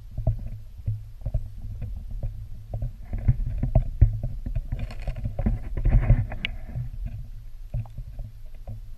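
Muffled underwater sound from a camera submerged in water: a low rumble with scattered clicks and knocks, busier in the middle.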